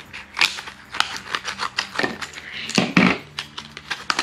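Scissors snipping through a plastic blister pack of paint markers, with the stiff plastic packaging crackling and rustling as it is cut and pulled apart by hand.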